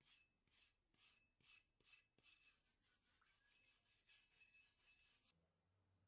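Rusty steel axe head scrubbed by hand with a flat tool under liquid: repeated scratchy rubbing strokes, about two to three a second, that stop shortly before the end.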